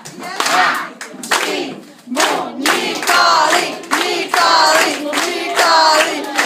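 A group singing a Portuguese birthday song together, with hands clapping along.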